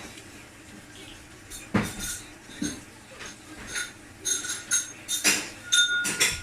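Crockery and cutlery clinking and clattering: a string of sharp knocks with short ringing tones, one about two seconds in and a busy run in the last two seconds.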